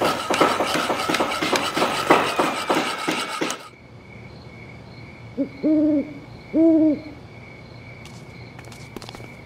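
A fast, loud clatter of knocks and tool noises cuts off suddenly about three and a half seconds in. Then crickets chirp steadily and an owl hoots three times, a short hoot followed by two longer ones.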